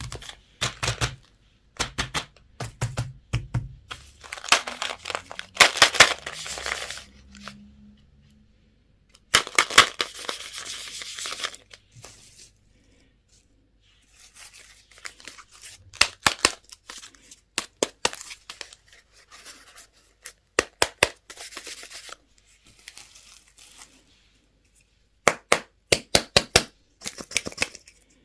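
Candy and toy packaging being torn open and crinkled, with many sharp clicks and taps of plastic between stretches of tearing.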